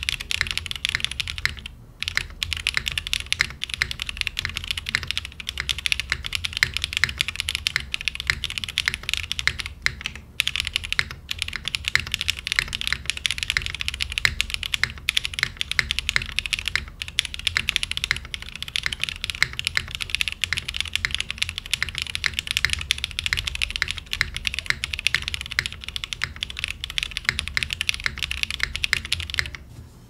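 Rapid, continuous typing on a Kage top-mount mechanical keyboard with a polycarbonate plate, Krytox-lubed linear BCP switches (Cherry top housing, cream stem, Gateron X bottom housing) and GMK keycaps. Dense keystrokes throughout, with brief pauses about two and ten seconds in.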